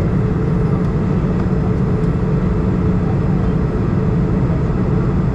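Steady cabin noise inside an Airbus A320 airliner in flight: the jet engines' drone and rushing airflow, a constant low rumble with a faint steady hum.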